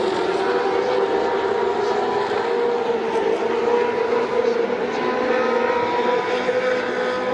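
Vintage 1970s–80s Formula 1 car engine running hard at high revs, a steady high-pitched note that climbs slightly near the end.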